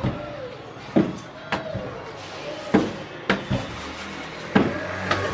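Rolling pin knocking against a wooden worktop while stuffed naan dough is rolled out: about seven sharp knocks at irregular intervals.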